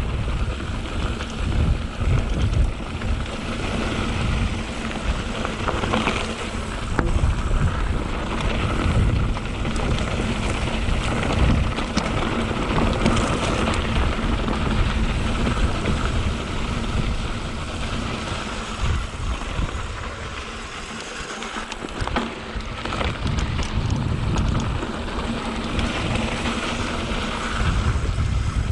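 Mountain bike, a 2021 Canyon Spectral 7, riding fast down a dirt singletrack: wind rushing over the microphone, tyres on dirt and rock, and the bike knocking and rattling over bumps. The noise eases off briefly about two-thirds of the way through.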